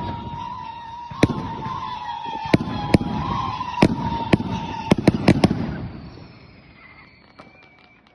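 New Year's Eve fireworks: sharp bangs at irregular intervals over a steady high whistling tone. The bangs stop a little past halfway and the rumble fades away.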